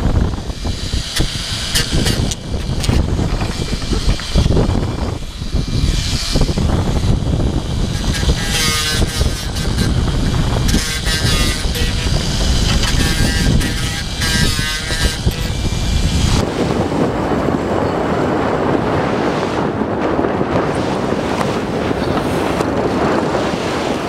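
Heavy wind buffeting the microphone on the deck of a racing sailboat under way, mixed with rushing water; shouted voices come through briefly in the middle. After about sixteen seconds the rumble drops away to a steadier hiss of wind and water.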